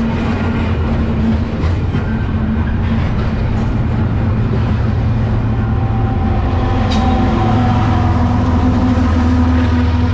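Double-stack intermodal train rolling past at about 15 mph, its container well cars clattering over the rails, with the steady rumble of a diesel locomotive that grows louder from about halfway through as the locomotive comes by. A single sharp click a little after halfway.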